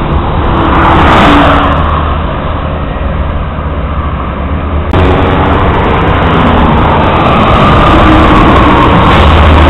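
Highway traffic noise from engines and tyres. A vehicle passes about a second in. After an abrupt change about halfway through, the noise is louder and steady, with a loaded flatbed tractor-trailer rolling past close by near the end.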